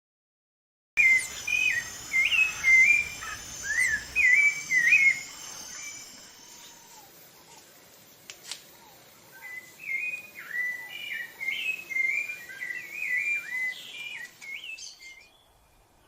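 Rufous-bellied thrush singing: two runs of short, clear whistled notes, the first starting about a second in, with a pause of a few seconds between them. A faint steady high hiss lies underneath.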